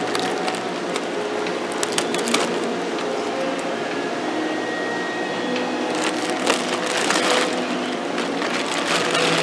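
Thin plastic fish-shipping bags crinkling and rustling as hands handle and unwrap them in a styrofoam-lined box, with denser crackling about two seconds in and again from about six to seven and a half seconds.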